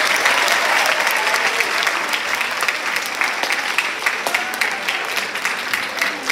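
A large seated audience applauding: a dense burst of clapping that peaks at the start and slowly tapers off.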